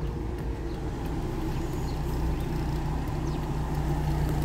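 Car interior noise while driving on a wet road: a steady low engine hum with tyre and road noise.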